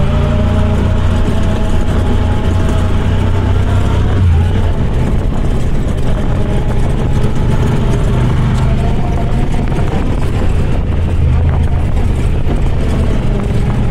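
Off-road vehicle engine running steadily under way, a low drone whose pitch drifts gently up and down with the throttle, rising briefly about four seconds in.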